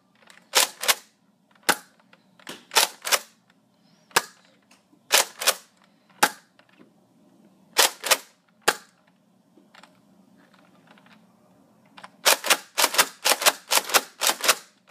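A Nerf Rampage pump-action dart blaster being fired. First come single shots, each a pump click and a pop, spaced out over about nine seconds. After a short pause there is a fast run of about a dozen clicks and pops near the end: slam fire, the trigger held down while pumping.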